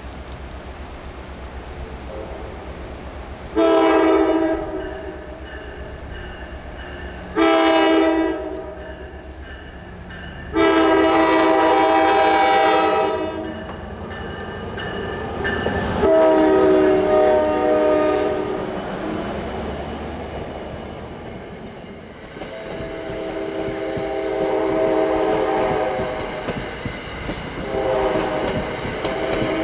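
Train air horn with several notes at once, sounding a series of blasts: two short ones, then a long one and another that fades, then softer, longer blasts near the end. Over a low rumble, with light clatter of wheels on rail in the later part.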